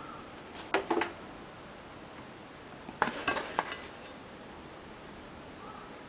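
Hard kitchenware knocking and clinking: two short clusters of clinks about two seconds apart.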